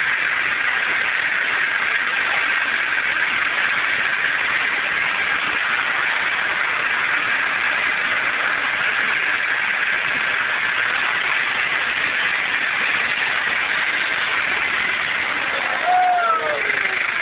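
Car engine running steadily as the vehicle climbs a hill track. A short voice is heard near the end.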